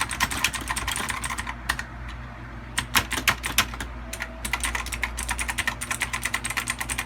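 Fast typing on a Gigaware K28 mechanical keyboard: rapid runs of key clicks, easing off briefly about two seconds in, then picking up again.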